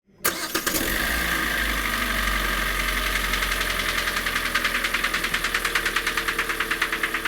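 Kia Sportage's 2.0-litre G4NA four-cylinder petrol engine running with a fast, regular knock, starting abruptly about a quarter second in. The knock comes from scored cylinder walls, worst in the third and fourth cylinders, which the mechanic says only re-sleeving the block will cure.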